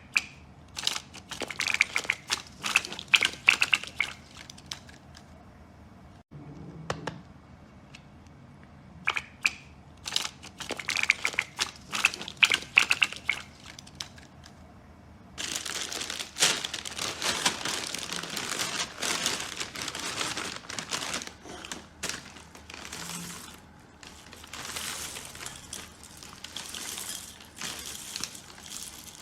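Crinkling and crackling sounds: two runs of sharp, irregular snaps, then from about halfway through a continuous dense crinkling that carries on to the end.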